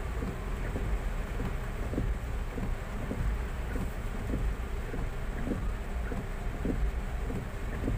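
Rain falling on a car's roof and windscreen, heard from inside the cabin: scattered drops tapping irregularly over a low steady rumble from the stationary car.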